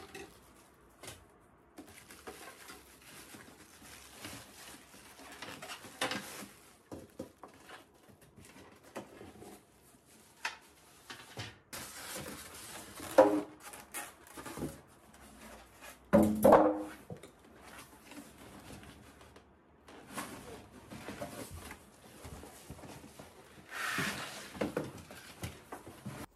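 Unboxing sounds: plastic wrapping and packaging rustling and crinkling as cardboard flaps and a polystyrene foam insert are handled, with two louder sharp handling sounds near the middle.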